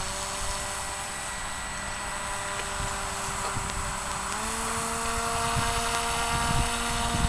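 Radio-controlled model airboat's motor and air propeller, fitted with a different prop, running with a steady whine. It spins up as it starts and steps up in pitch about four seconds in as the throttle is opened further.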